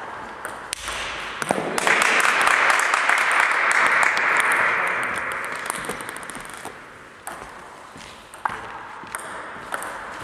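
Sharp clicks or taps, then a burst of applause about two seconds in that fades away over several seconds, with the taps carrying on.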